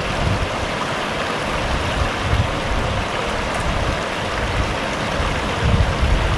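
Floodwater rushing steadily over a small dam and down a creek.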